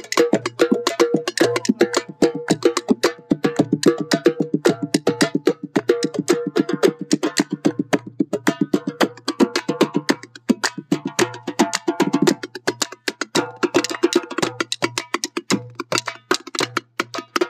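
Fast hand drumming on a goblet-shaped hand drum: a quick, steady run of sharp strikes that keeps going without a break.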